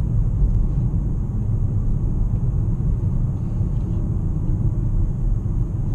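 Steady low rumble of a 2017 Nissan Maxima cruising, its road noise heard from inside the cabin.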